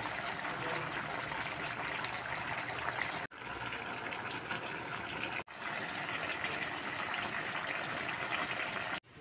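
Chicken stew in a thick creamy sauce simmering in an open pan, a steady bubbling crackle. The sound breaks off abruptly a few times.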